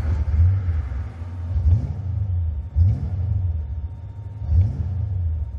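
Fox-body Mustang GT's 5.0 V8 running roughly just after its first start since an engine fire, blipped up in revs and dropping back about three times.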